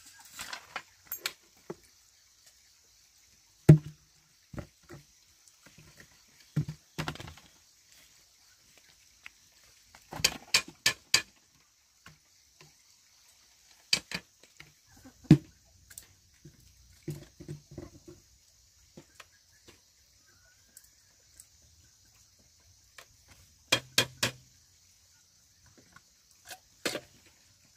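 Scattered sharp clicks and knocks of a small knife cutting and tapping bamboo, some single and some in quick runs of several strokes, over a steady high hiss.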